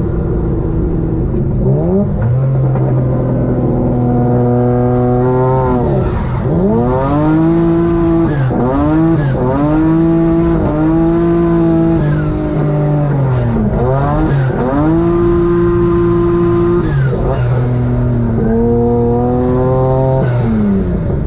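Car engine of the twin-engine Mazda MX-3 being driven hard, revving up and holding high revs, then dropping off and climbing again over and over, as in drifting.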